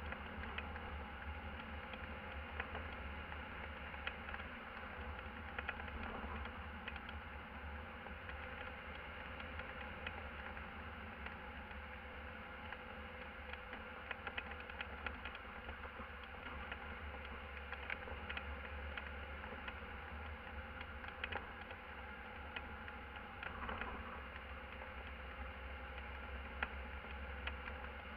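Van driving at road speed, heard from inside the cab: a steady engine and road drone with a hum, and small rattles and clicks scattered throughout.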